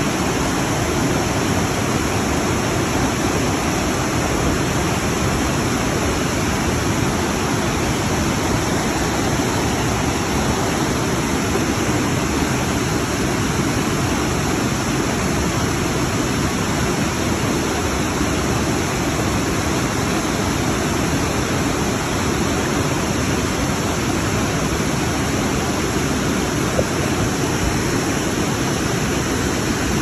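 A fast-flowing mountain river rushing, a loud, steady, unbroken wash of water noise.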